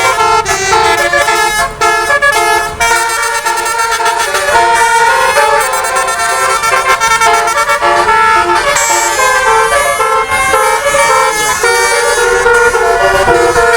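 Basuri-type telolet bus horn with 18 air-horn trumpets, playing a loud, continuous melody of several notes sounding together, changing in quick short steps.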